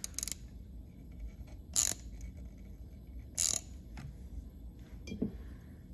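Mini ratchet turning a thread tap into a drilled-out bolt hole in a Stihl MS361 chainsaw engine case, cutting new threads for a helicoil insert: two short bursts of ratchet clicking about a second and a half apart, with a few faint ticks between.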